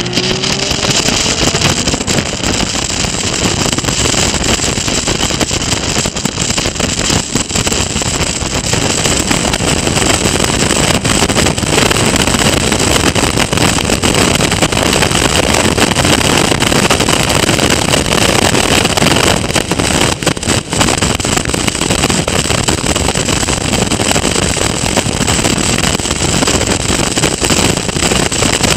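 Onboard a Caterham Seven Academy race car at racing speed: steady, heavy wind rush on the camera microphone, with the engine running underneath.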